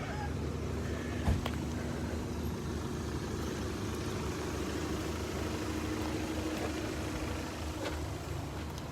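An engine running steadily, a low even hum with a faint higher tone held over it, and one light knock about a second in.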